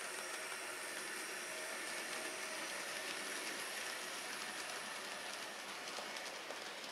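N scale model freight train, led by a Bachmann CSX GP40 diesel, running along the track: a steady whirring hiss from the locomotive's small electric motor and the rolling wheels. Fine, fast ticking of wheels over rail joints becomes clearer in the second half.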